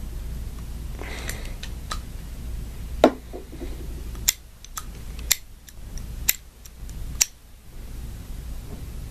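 Metal clicks of an AR-15 bolt carrier group being handled and the bolt worked in its carrier: about six sharp, separate clicks, the first about three seconds in and the last near seven seconds, after a soft rustle about a second in.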